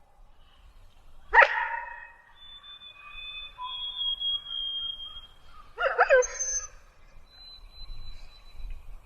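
Wolf sound effect, presented as the extinct Hokkaido (Ezo) wolf: two short barks, about a second and a half in and again near six seconds in.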